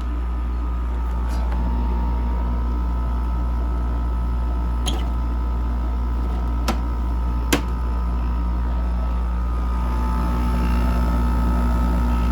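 Kenmore 5,000 BTU window air conditioner running, its compressor humming steadily with a rattle from the compressor shaking the unit. Three short sharp clicks come around the middle.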